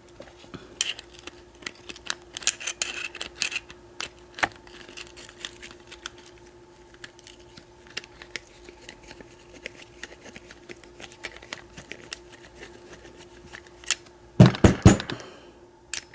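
Small metal clicks and scrapes as a grimy padlock is handled and worked apart by hand, over a steady faint hum. Near the end comes a quick run of louder knocks.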